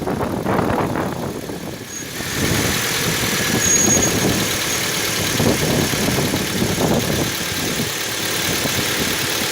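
Kia Ceed JD engine running, with a steady high hiss and a faint thin whistle that grow louder about two seconds in. The whistle comes from the drive belt and alternator, and the dealer condemned an alternator bearing as the cause.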